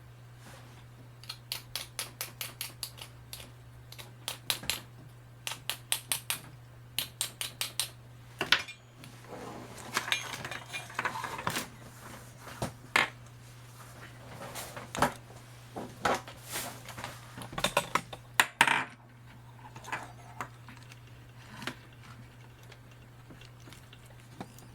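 Small metal tools clicking and tapping on a workbench during resoldering of a circuit board. The clicks are quick and light, coming in runs of about four a second in places, over a steady low hum.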